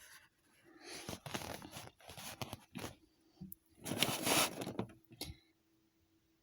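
Crinkling and tearing of small plastic toy packaging as it is handled and opened, in two spells of a second or two each, then quiet.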